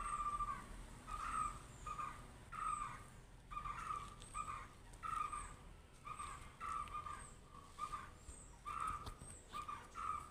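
Kitten mewing over and over in short mews, about two a second.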